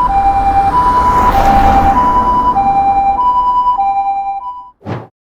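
Ambulance two-tone hi-lo siren, the "pee-po" kind, switching back and forth between a higher and a lower steady tone about once a second over a low rumble. It cuts off suddenly near the end, followed by a brief sharp burst of sound.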